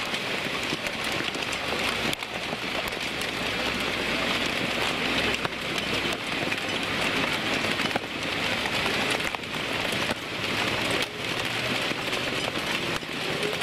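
Heavy rain pouring down steadily, a dense hiss full of small drop impacts.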